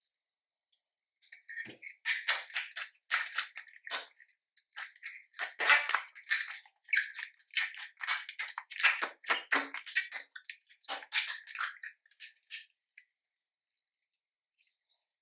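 Slime being squished and kneaded by hand, with quick runs of wet crackling and popping as air pockets burst, starting about a second in and stopping near the end.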